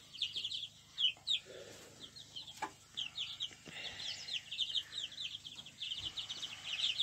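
A flock of young chickens with their first combs coming in, peeping as they feed: many short, high, falling cheeps that overlap, growing denser in the second half.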